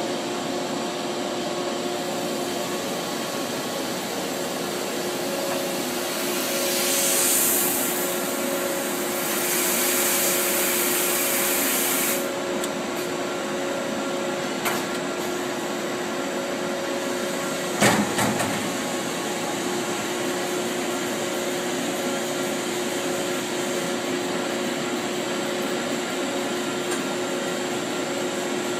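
Charmilles Roboform 40 EDM machine running with a steady hum, broken by two bursts of loud hissing about a third of the way in and a sharp click a little past the middle.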